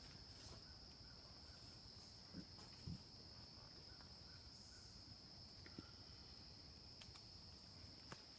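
Faint, steady high-pitched insect chorus, with a couple of faint brief low sounds about two and a half and three seconds in.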